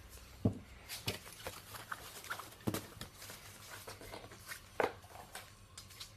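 Handling noise of a patio umbrella: the canopy fabric rustling and the umbrella's ribs clicking and knocking together, with three louder knocks spread through.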